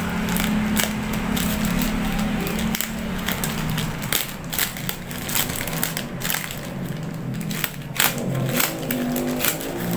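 Black plastic mailer bag crinkling and crackling as fingers pick at it and tear it open, in irregular sharp crackles.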